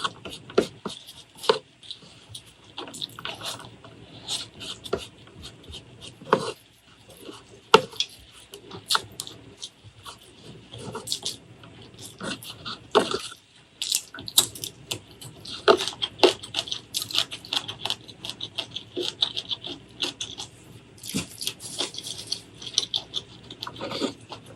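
Close-miked eating sounds: chewing with many wet mouth smacks and short crisp clicks and crunches.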